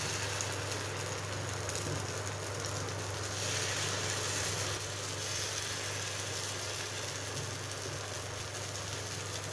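Hot oil sizzling steadily in a heated kuzhi paniyaram pan as batter is ladled into its oiled cups, over a steady low hum.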